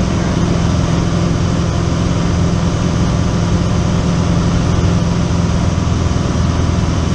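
Single-engine light aircraft's piston engine and propeller droning steadily inside the cabin, heard on final approach to a runway.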